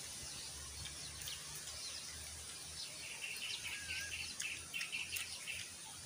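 Outdoor birds chirping, with a quick run of repeated short chirps, about four a second, starting about halfway through, over a low steady background rumble.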